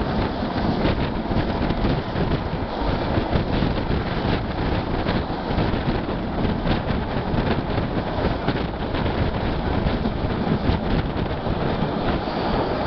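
A passenger train running along the track, heard from an open coach window as a steady rushing noise, with wind buffeting the microphone.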